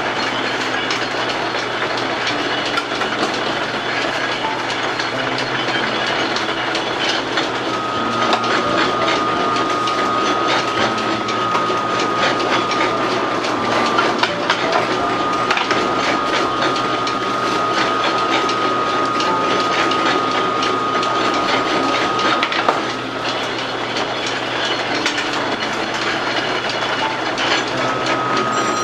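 An old noodle-making machine running: its dough-sheeting rollers and drive clatter steadily, with a thin high whine coming in about eight seconds in, dropping out a little after twenty seconds and returning near the end.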